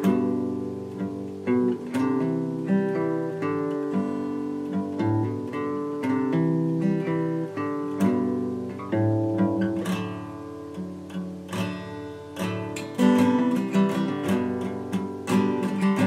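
Intro music played on acoustic guitar, a run of picked notes and chords.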